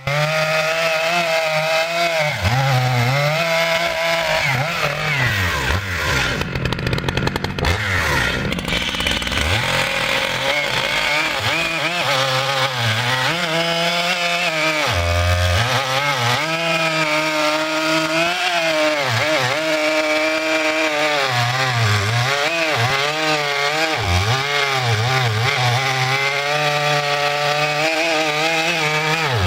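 Stihl MS 881 Magnum two-stroke chainsaw cutting through thick logs, its engine pitch repeatedly dropping under load and rising again as it revs back up. This is a new saw running through its break-in cuts.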